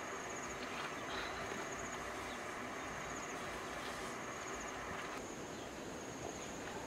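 Outdoor insect chorus: a steady high-pitched chirring with regular small pulses, over a hissing drone that cuts off abruptly about five seconds in, with a few faint rustles and clicks.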